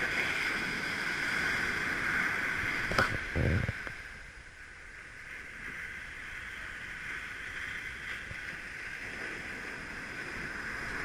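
Ocean surf and wind: a steady hiss of breaking waves, with a click about three seconds in and a short low rumble just after.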